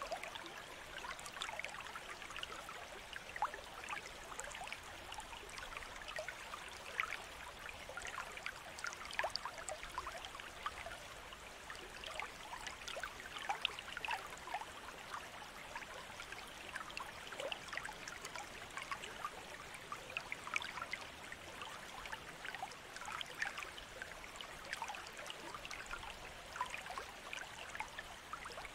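Steady trickling water, with many small irregular splashes and drips over a constant wash.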